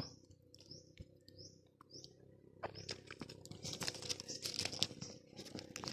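A bird gives a few short, high, rising chirps in the first two seconds. Then leaves and twigs of a Java plum tree rustle and crackle as a hand reaches in among the branches.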